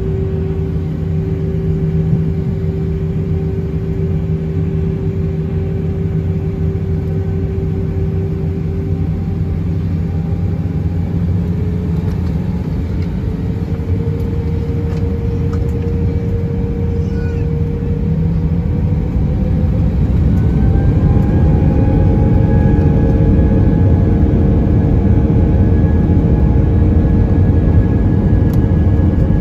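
Airbus A319's twin IAE V2500 turbofans heard from the cabin over the wing at taxi thrust: a steady rumble with a whine whose pitch climbs twice, around ten seconds in and again around twenty seconds in, as the engines spool up and the noise grows louder.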